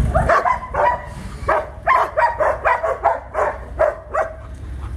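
A dog barking over and over, about a dozen short barks at two to three a second, with a low engine rumble underneath.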